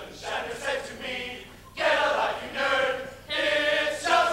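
Men's chorus singing together, several voices at once, the phrases turning loud about two seconds in.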